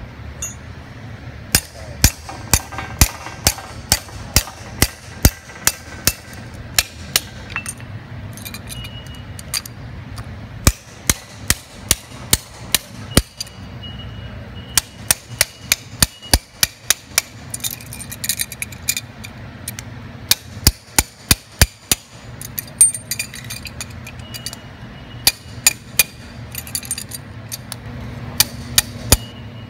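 A hammer striking a spanner wrench set on the lock nut of a 10,000 psi bladder accumulator's oil port, working the nut loose. The sharp metal-on-metal blows come in runs of several at about two a second, with short pauses between runs.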